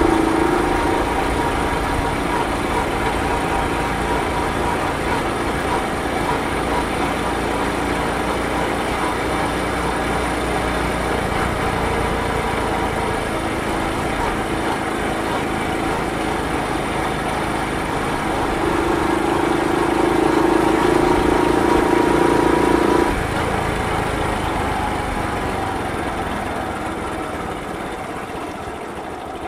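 Honda Super Cub 50 (AA01, carburettor) with its 49cc air-cooled four-stroke single running steadily under way at low speed. The engine note gets louder for a few seconds, drops suddenly as the throttle closes, then falls away gradually as the bike slows.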